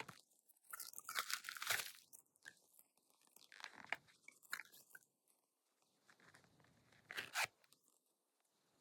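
Packaging crinkling and rustling as it is handled and opened, in irregular bursts with a short loud crackle about seven seconds in.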